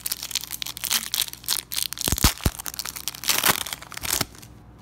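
Foil wrapper of a sticker pack being torn open and crumpled by hand: a dense run of crinkling and crackling that stops about four seconds in, with two heavier bumps around two seconds in.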